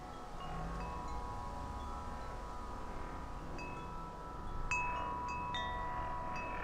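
Wind chimes ringing: a held tone lingers, and a cluster of new strikes about two-thirds of the way through adds several bright overlapping notes.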